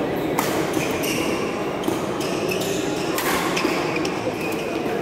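Badminton rally: several sharp racket strikes on the shuttlecock, with short squeaks of shoes on the court and a steady murmur in a large hall.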